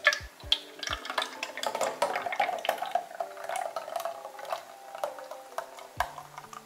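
Kefir pouring in a thick stream from a carton into a plastic measuring jug, splashing as the jug fills.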